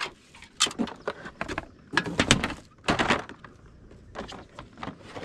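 A folding storage crate being unfolded and snapped together, its panels clicking and knocking into place in a string of sharp knocks and thunks.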